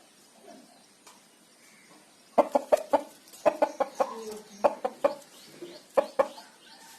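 Chickens clucking: a quick run of short, sharp calls, several a second, starting about two and a half seconds in and stopping near the end.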